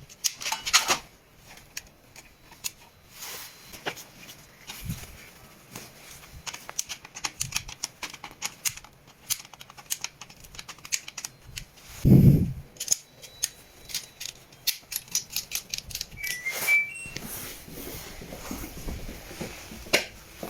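Hand tools and wire being worked on a loose, uncrimped connection: a long run of sharp clicks and snips, with one louder thump about twelve seconds in and a few short high chirps a little later.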